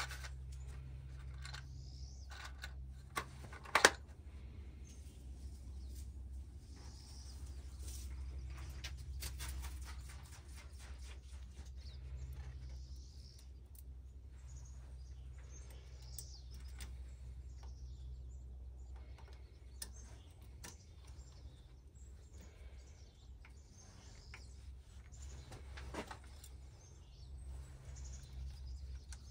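Birds chirping faintly over a steady low hum, with scattered light clicks and one sharp knock about four seconds in.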